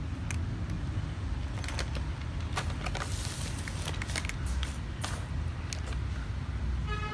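A cat crunching dry kibble from a plastic plate: a run of sharp, crisp clicks, thickest from about two to four seconds in, over a steady low rumble. Near the end a short steady tone begins.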